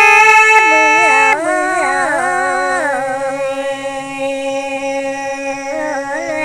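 Women singing a Red Dao folk duet: a loud held note breaks off about a second in, and a voice carries on with a slow melody full of slides and wavering ornaments.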